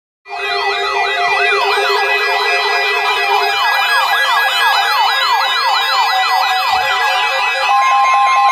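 Layered electronic siren wails over steady alarm tones, starting abruptly after silence: several fast rising-and-falling sweeps at different pitches. One low tone drops out partway through, and a single steady alert tone near 1 kHz joins near the end.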